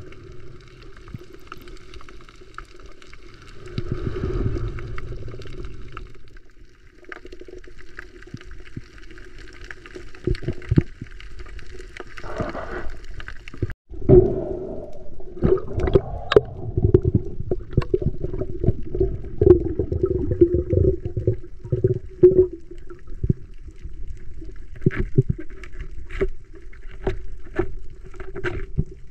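Underwater sound picked up by a diver's camera: a steady hum with gurgling water and bubbles, and many sharp clicks and knocks from about halfway on.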